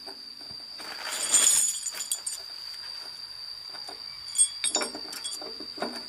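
Steady high-pitched insect drone, with a brief rustle about a second in and a few sharp clinks around four to five seconds.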